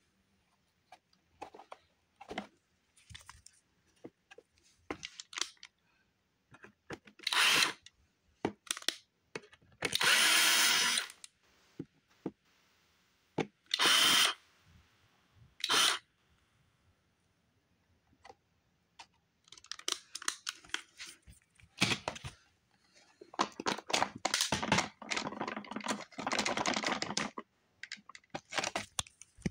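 Cordless screwdriver running in short bursts, backing screws out of a plastic upright vacuum cleaner housing, with clicks and rattles of the plastic parts being handled between bursts.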